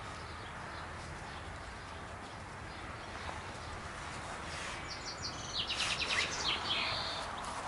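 Faint, steady outdoor background noise. From about halfway through, a small bird chirps in quick runs of short, high notes that fade out near the end.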